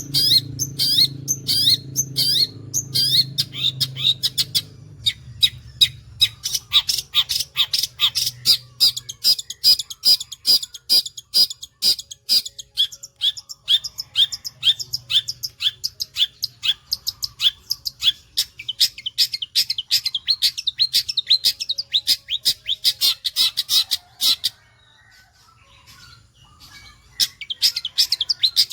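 Long-tailed shrike (cendet) singing a long run of rapid, evenly repeated sharp notes, the fast 'sewing machine' spit chatter, several notes a second. It breaks off about 25 seconds in and starts again near the end.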